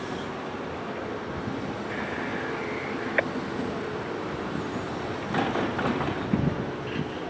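Wheel excavator's diesel engine running steadily as it digs, with a sharp click a little after three seconds in and a stretch of scraping and knocking from the bucket working the dirt around five to six and a half seconds in.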